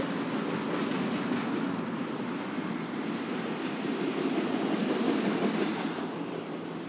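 Freight cars of a BNSF intermodal train rolling past, steel wheels running steadily over the rails, easing off slightly near the end.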